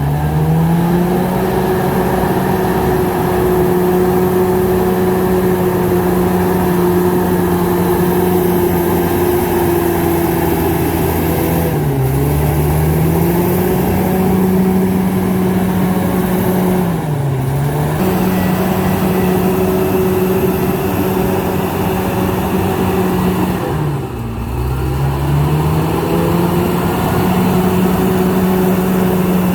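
Komatsu D68ESS bulldozer's diesel engine running hard at a steady high speed, its pitch sagging and picking back up about four times: near the start, about twelve seconds in, about seventeen seconds in and about twenty-four seconds in.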